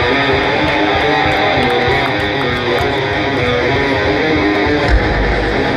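Electric guitar playing the intro of a punk rock song live through a concert PA, heard from the crowd. About five seconds in a loud low thump hits and a deep bass sound comes in underneath.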